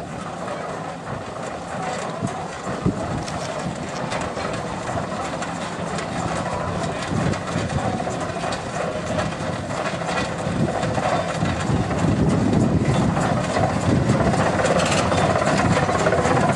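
Case steam traction engine running as it drives slowly along a gravel lane, with a steady mechanical clatter. It gets louder about twelve seconds in as it comes nearer.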